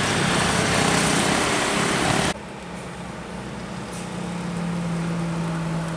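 Road vehicle passing close with loud road and engine noise that cuts off abruptly about two seconds in, followed by a steadier engine hum that grows a little stronger.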